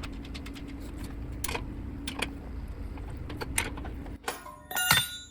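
Metal wrench work on the ebike's wheel bolts: irregular light metallic clicks over a steady low hum, with a louder ringing clink of metal on metal near the end.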